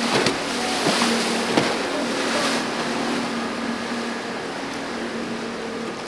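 A single outboard motor on a walkaround fishing boat running with a steady hum under the loud rush and slap of churning water and wake, with a few splashes in the first two seconds; the whole sound grows slowly quieter as the boat moves away.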